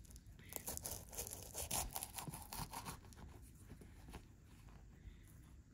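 Flaky apple pastry's crisp laminated crust crackling as a wooden knife saws through it and hands break it open. The crackles come thick and fast for the first three seconds, then thin out.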